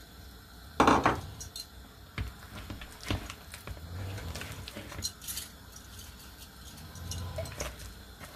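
Hands mixing fish pieces through thick gram-flour batter in a glass bowl, with small clinks against the glass and a louder knock about a second in.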